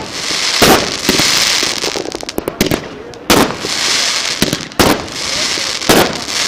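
Fireworks going off: four sharp bangs a second or so apart, each followed by about a second of dense crackling hiss, with many smaller cracks in between.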